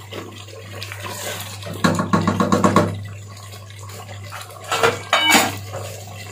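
A wooden spatula scraping and knocking against a metal cooking pot of simmering mutton curry, in two short bouts, over a steady low hum.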